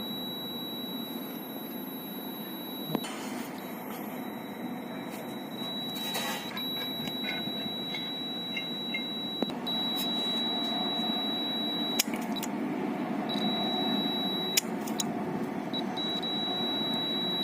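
Clamp meter's beeper sounding a steady high-pitched tone that cuts out briefly several times, with clicks at some of the breaks, over a low steady hum.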